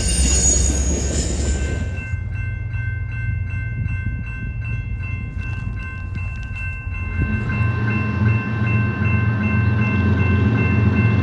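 Freight train wheels squealing on the rail. About two seconds in, this gives way to a rapidly struck bell with a steady ringing. From about seven seconds in, a locomotive's low engine rumble builds under the ringing.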